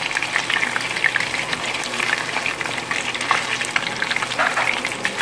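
Battered chicken thigh pieces frying in hot oil in a pan: a steady sizzle with a dense stream of small crackles and pops, kept over medium heat so the coating crisps slowly.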